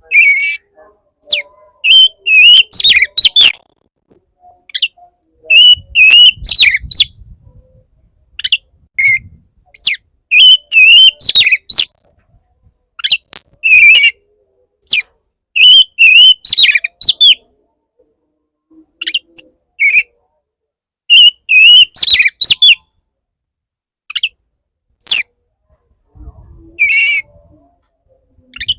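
Male oriental magpie-robin singing its courtship song: loud, varied whistled phrases a second or two long, repeated every few seconds with short pauses between.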